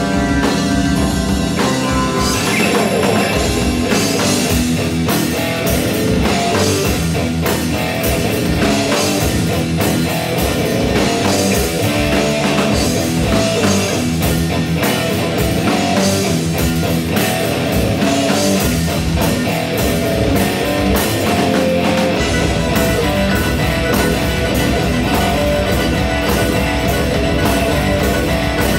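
Live rock band playing an instrumental piece in an odd time signature, with electric guitar, keyboards, bass and drum kit, loud and continuous. About two-thirds of the way through the deepest bass fills out and becomes steadier.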